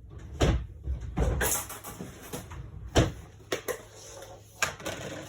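Rummaging for a small part: a series of knocks and clicks, the loudest about three seconds in, with some rustling as containers and packaging are handled.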